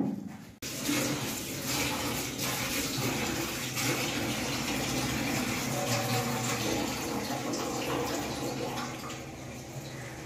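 Steady rushing of running water, starting suddenly about half a second in, with a faint low hum underneath.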